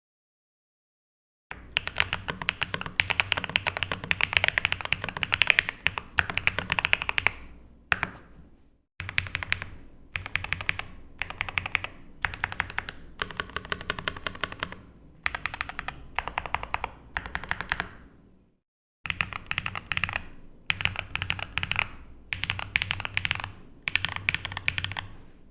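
Custom mechanical keyboard being typed on: a KBDFans Phase One with Gateron Baby Kangaroo V2 tactile switches in an aluminum plate, EPBT PBT keycaps, lubed Durock V2 stabilizers, full foam and a tape mod. Rapid steady keystrokes start about a second and a half in and run in long stretches, with brief pauses about eight and eighteen seconds in.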